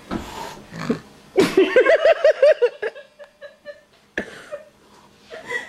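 Cat making a guttural, pulsing snort-growl: a run of about eight quick throaty pulses lasting over a second, the agitated warning noise of a cat that won't be handled. A sharp click follows a little later.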